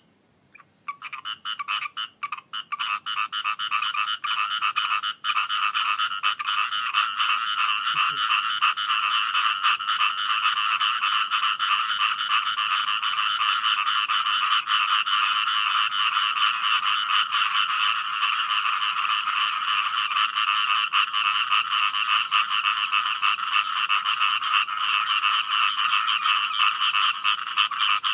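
Chorus of frogs croaking, many rapid pulsed calls overlapping. It starts as scattered calls and within the first few seconds fills in to a dense, continuous chorus.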